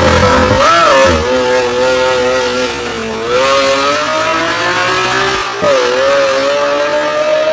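Sports car engine and exhaust running loud at high revs. The note holds steady, dips briefly about three seconds in and again nearly six seconds in, then climbs slowly as the car accelerates.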